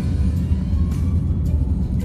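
Background music over the low, steady rumble of a car driving on the road.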